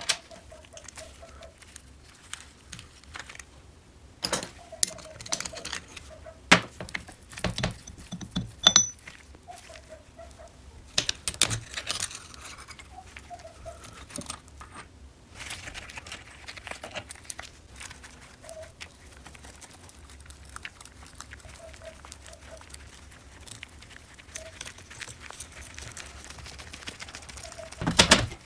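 Metal engine parts of a Riga 12 motorcycle clinking and knocking as the aluminium crankcase and cylinder are handled and taken apart by hand, in irregular clicks and clatter with a few louder knocks.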